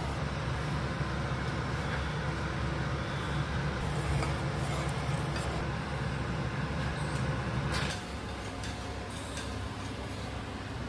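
Gas stove burner running under a saucepan of chai at the boil: a steady low rumble with a faint hiss, which drops away suddenly about eight seconds in.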